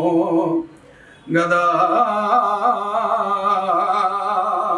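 A man singing a Telugu padyam (metrical verse) unaccompanied, in the drawn-out stage-verse style, with wavering, ornamented held notes. He breaks for a breath about a second in, then sustains a long ornamented note on the word 'gadā' to near the end.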